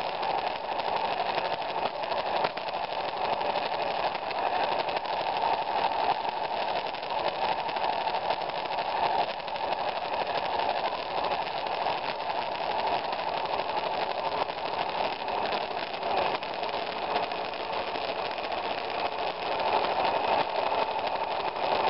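Single-cylinder engine of a 2002 BMW F 650 GS Dakar motorcycle running steadily as the bike rides along.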